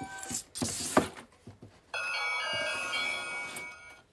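The wooden toy dollhouse is handled with a clatter and a sharp knock, then about two seconds in one of its battery-powered doorbell buttons plays an electronic ringing chime that lasts under two seconds and fades. It starts with the fading tail of the previous doorbell's tone.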